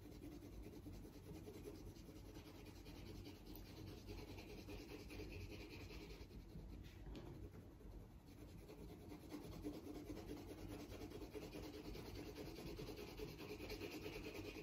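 Colored pencil shading on paper: faint, steady scratching of the pencil lead rubbing back and forth, with a brief lull about halfway through.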